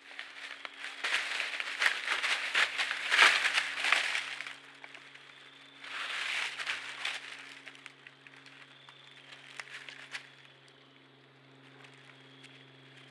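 Whitetail deer scuffling in dry leaves: bursts of crackling, crunching and clicking, the heaviest about three seconds in and again around six seconds, then scattered clicks. A steady low electronic hum runs underneath.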